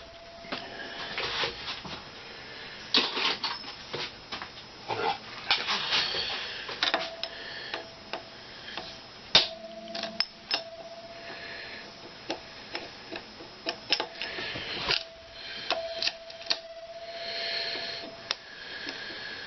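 Hand tools and metal parts handled at a workbench: scattered clicks and taps, a few short scrapes, and one sharp tap about nine seconds in.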